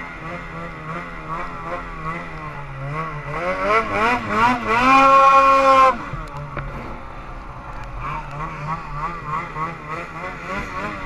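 Snowmobile engine running with the throttle worked up and down while riding through deep powder. About three seconds in it climbs to high revs, holds there loudly for about a second, then drops off abruptly as the throttle is released, before returning to uneven part-throttle running.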